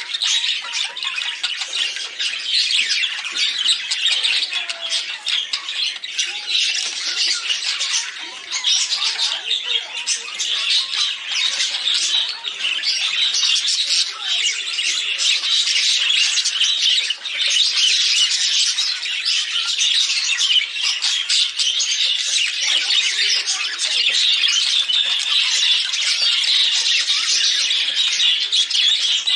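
Several budgerigars chattering and warbling without pause, a dense, unbroken mix of quick high chirps and chatter.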